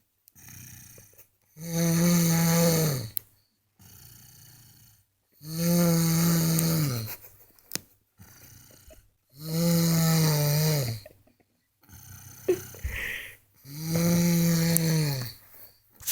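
A young boy snoring in his sleep: four long, loud snores about four seconds apart, each dropping in pitch as it ends, with quieter breathing between.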